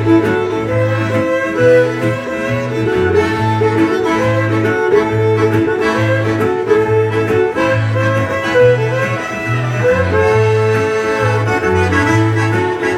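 Live Cajun instrumental music: fiddle and diatonic button accordion playing the melody over strummed acoustic guitar. A low bass line alternates between two notes about one and a half times a second, keeping a steady two-step beat.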